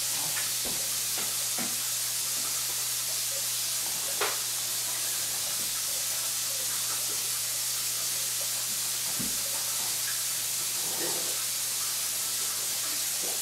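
Steady hiss over a low hum, the room tone of the recording, with faint scattered taps and one sharp click about four seconds in.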